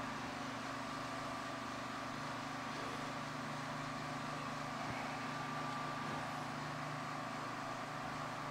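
A steady mechanical hum with a faint high whine, unchanging throughout.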